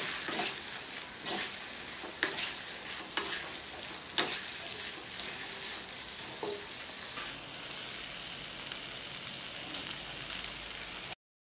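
Sauce-coated chicken strips, peppers and onions sizzling in a non-stick wok as a wooden spatula stirs and tosses them, with sharp knocks of the spatula against the pan about once a second for the first few seconds. The sound stops abruptly near the end.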